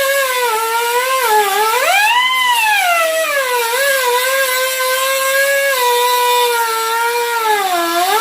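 Cut-off wheel grinder cutting into the metal casing of an electric motor: a high motor whine that sags in pitch as the wheel bites and picks back up, dipping clearly about a second and a half in and again near the end, over a gritty hiss.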